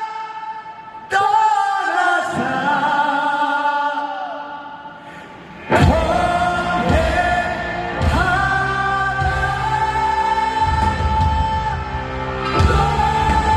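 Live concert performance: a singer holds long sustained notes with little accompaniment. About six seconds in, a full band comes in with a loud hit and keeps playing under the voice.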